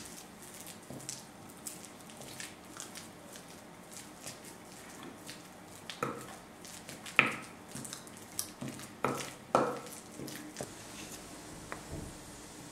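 Wooden spoon mashing boiled potatoes in a glass bowl: soft squishing with scattered light knocks of the spoon against the glass. A few sharper knocks come between about six and ten seconds in.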